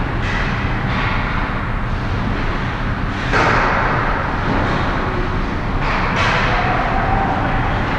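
Ice hockey rink sound: a steady low rumble with short hissing scrapes of skate blades on the ice, the loudest about three seconds in and two more close together around six seconds.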